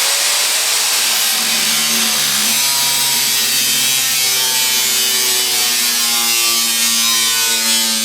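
A handheld power tool running steadily as it cuts the rusted sheet metal of a 1980 CJ7 Jeep's body, its pitch rising over the first second as it comes up to speed.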